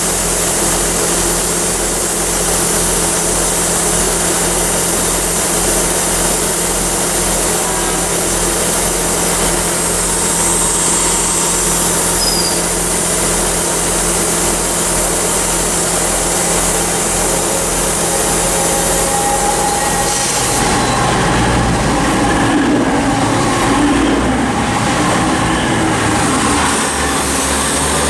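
Class 158 diesel multiple units idling at a station platform, a steady engine hum. About twenty seconds in the sound changes, with a wavering engine note.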